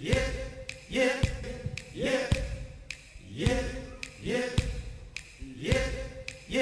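A man's voice saying a short sung "yep" over and over, about once a second. Each one rises quickly to the same held pitch and ends with a sharp click, the same live-microphone clip looped again and again.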